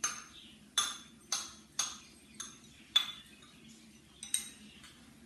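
A spoon clinking against a plate about seven times, sharp ringing taps roughly half a second apart, as grated coconut is knocked off the plate into a frying pan.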